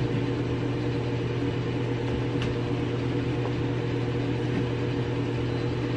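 Steady low machine hum in the room, even in level throughout, with one faint click about two and a half seconds in.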